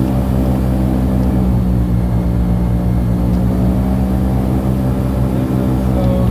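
Airboat engine and air propeller running at a steady cruising speed, a loud, even drone with no change in pitch.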